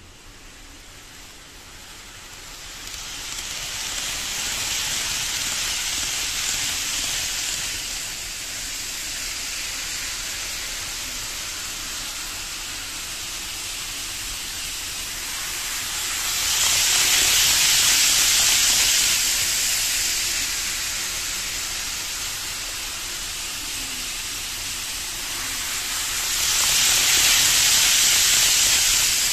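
KATO N-gauge 500 series Shinkansen model train running on its track: a steady hissing whir of wheels and motor that rises about three seconds in and swells louder twice as the train passes close, about halfway through and again near the end.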